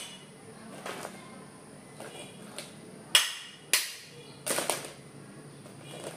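Ice cubes dropped from a scoop and pushed by hand into a plastic cup already packed with ice, clinking and knocking: about seven sharp clinks at uneven intervals, the loudest about three seconds in.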